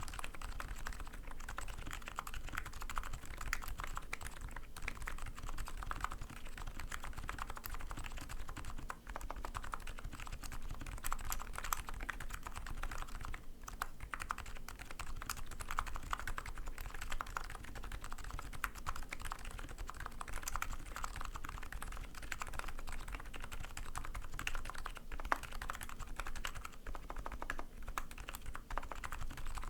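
Continuous fast typing on a custom 60% keyboard with lubed electrostatic-capacitive (EC, Topre-style) switches and PBT keycaps: a steady stream of soft, rounded keystroke clacks with occasional louder spacebar or key hits.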